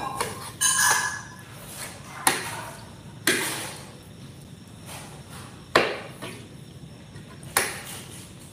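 A handful of sharp taps and clinks, about five spread across the stretch, each dying away within half a second, from handling the cutlery, plate and earphone cable at a meal.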